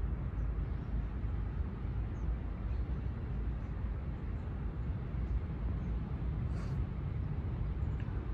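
Outdoor park ambience: a steady low rumble, with a few faint, short high chirps now and then.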